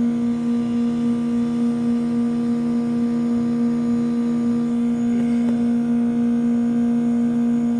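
2008 Goodman 2-ton heat pump outdoor unit running with a loud, steady hum and a faint regular pulsing beneath it, its outdoor coil iced over and the unit not yet in defrost.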